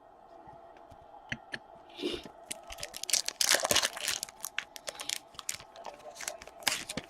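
Trading-card packaging being handled, with crinkling and tearing of plastic or foil wrapping. It is loudest in a dense burst about three to four seconds in, with scattered clicks and rustles around it.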